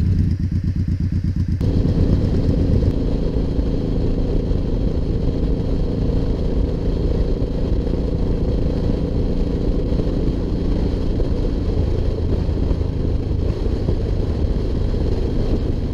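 Suzuki Boulevard cruiser motorcycle engine idling with an even pulsing beat, then about a second and a half in, the engine running steadily while riding, with wind and road noise.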